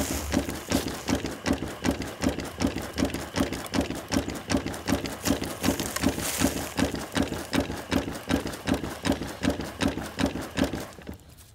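Keene dry washer running, its shaking mechanism knocking in a steady rhythm of about three beats a second. The knocker strikes a customized rubber piece in place of the usual metal block, which keeps it quieter than usual. The knocking stops near the end.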